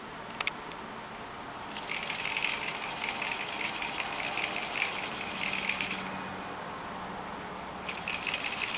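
Small LEGO electric motors and plastic Technic axles and gears running with a fast rattling whir, in two spells, after two sharp clicks about half a second in.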